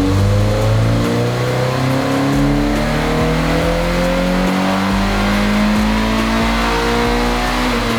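2014 Subaru BRZ's flat-four boxer engine, fitted with an aftermarket cat-back exhaust, pulling under load on a chassis dyno. Its pitch climbs steadily for several seconds, then drops near the end.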